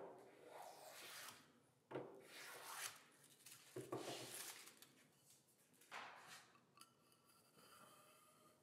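Hand block plane taking a few short, faint strokes along a small wooden wedge, each pass a brief scraping swish of the blade cutting a shaving, followed by light handling of the wood.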